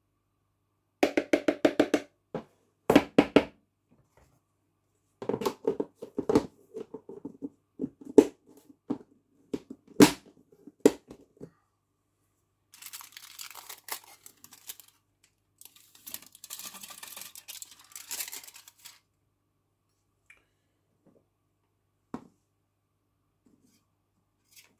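A metal spoon tapped quickly and repeatedly against a glass flask, several runs of taps with a ringing note, knocking malt extract powder off into it. After that comes a longer spell of rustling as the aluminium foil holding the powder is handled and emptied, and a couple of lone clicks near the end.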